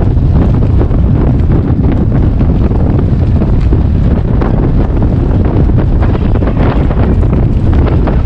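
Wind buffeting the microphone: a loud, steady low rumble with irregular crackle.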